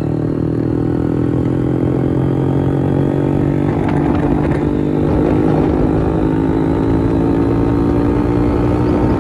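Hero Splendor motorcycle's single-cylinder four-stroke engine running steadily through an opened-up, modified exhaust silencer, its pitch edging slightly upward.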